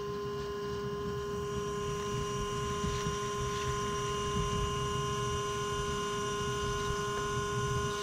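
Everything Bee Vac bee vacuum running steadily, a constant motor hum with higher whining tones, its hose nozzle held against a cluster of honeybees to suck them off the comb.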